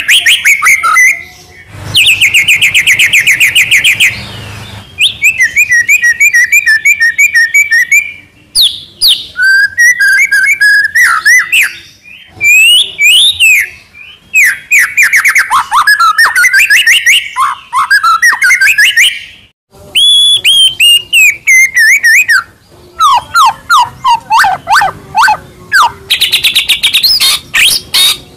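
White-rumped shama (murai batu) singing a loud, fast, varied song: rapid trills, whistles and quickly changing phrases, with short pauses between them.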